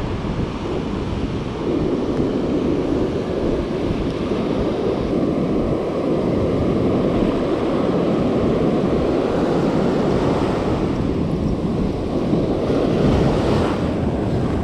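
Wind blowing on the microphone over the sea, a steady unbroken rushing noise with waves underneath.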